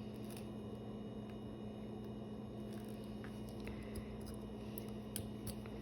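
Steady low electrical hum with a fixed tone, with a few faint scattered ticks.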